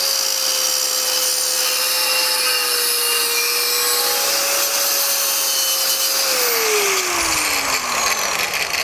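Angle grinder cutting into a car's metal frame flange, a loud steady grinding hiss over the motor's whine. About six seconds in the trigger is released and the motor's pitch falls as the disc spins down.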